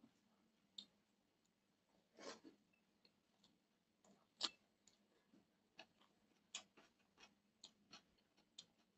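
Faint eating sounds: scattered wet mouth clicks and smacks of chewing, with fingers mixing rice on a steel plate. A longer smack comes about two seconds in and a sharp click about four and a half seconds in.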